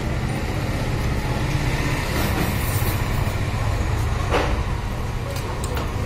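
Steady low rumbling background noise, with a short click about four and a half seconds in.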